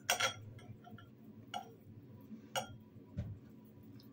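Metal fork clinking against a ceramic bowl while eating: three light clinks, the first the loudest, and a soft thump near the end.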